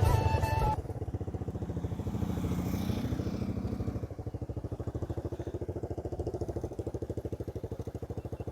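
Modified motorcycle with an aftermarket exhaust idling with an even, pulsing beat.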